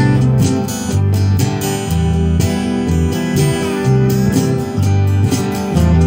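Acoustic guitar strummed in a steady country rhythm, with bass notes moving under the strums, in an instrumental passage without singing.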